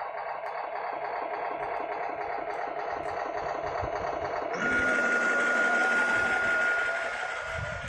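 RC model truck's engine sound running with a fast, even chatter like a diesel engine idling. About four and a half seconds in, a louder hiss with a steady whistle comes in and holds, then drops away near the end.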